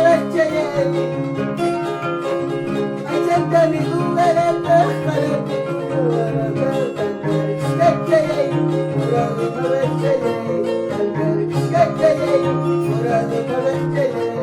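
Peruvian harp music: a quick run of plucked harp notes over a repeating plucked bass line.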